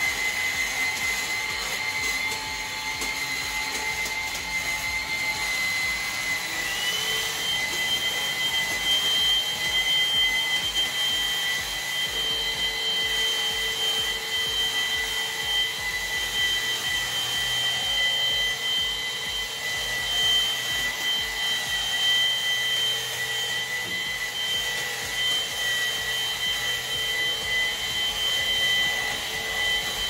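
Midea VSB16B cordless stick vacuum running as it is pushed over a tiled floor: a steady motor whine over the rush of suction. About seven seconds in, a second, higher whine comes in and holds.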